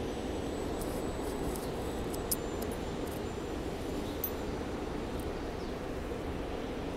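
Steady low rumble and hum of a rail station's train shed, with a SEPTA regional rail train standing at the platform. A couple of faint clicks come about two and four seconds in.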